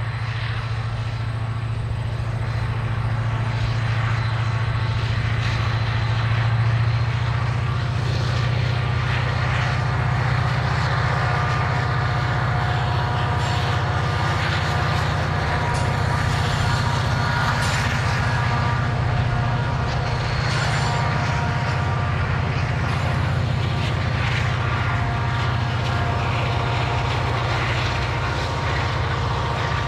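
Diesel locomotives hauling a freight train past, a steady low engine drone with fainter steady higher tones over it.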